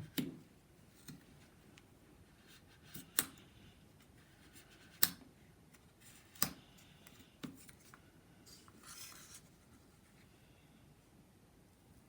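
Balsa wood being cut out of a model aeroplane wing: five sharp snaps a second or two apart as the blade goes through the ribs and strips, then a brief scraping rub about three-quarters of the way through.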